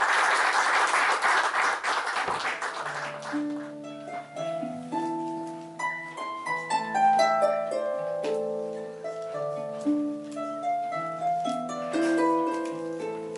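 Audience applauding, dying away about three seconds in, then background music of slow, separate plucked-string notes.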